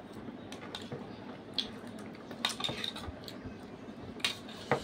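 Eating at a table: a spoon and tableware clinking and tapping now and then, about half a dozen short, sharp clicks over a faint steady background.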